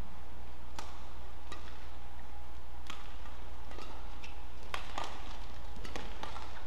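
Badminton rally: sharp cracks of rackets striking the shuttlecock, about one a second at first and coming faster in the second half, over a steady low hum.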